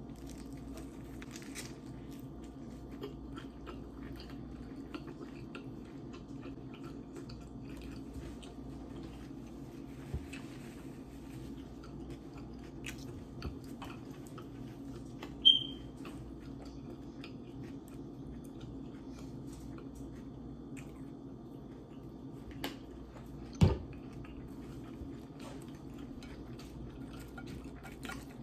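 Close-miked chewing and biting of food, with scattered small wet clicks and crunches over a steady low hum. A short, loud high-pitched tone sounds about halfway through, and a sharp knock near the end.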